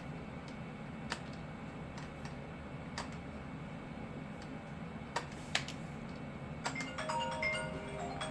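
Scattered single clicks from the ultrasound machine's keys and controls over a steady low machine hum. About seven seconds in, a tinkling marimba-like melody starts up, a phone ringtone.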